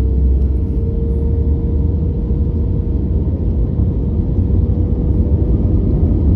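A steady, loud low rumble with a constant droning hum, as of a running vehicle.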